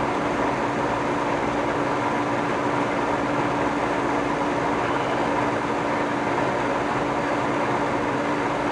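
1955 Federal Signal Model 2 electro-mechanical siren sounding its steady alert tone, one held pitch without rising or falling.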